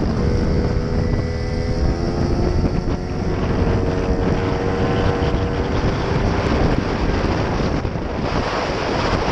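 Wind buffeting the microphone of a moving motorbike, with the bike's engine note faintly heard beneath it for the first six seconds or so before the wind covers it.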